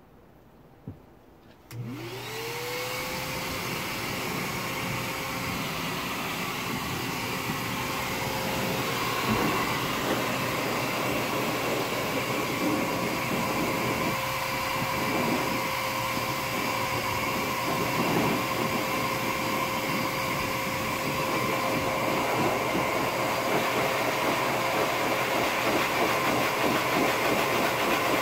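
Grooming air blower switched on about two seconds in: its motor spins up with a quickly rising whine, then runs steadily, blowing air through the hose nozzle into the rabbit's wool.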